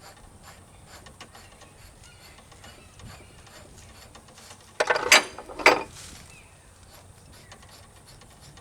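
Faint, repeated clicking of a ratchet wrench working a fastener on a loader's hydraulic tilt cylinder. Two loud, short knocks come about five seconds in, half a second apart.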